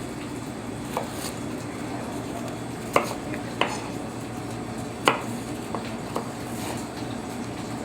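Kitchen knife knocking on a cutting board while celery is cut: about half a dozen separate knocks, spaced irregularly a second or so apart, over steady background noise.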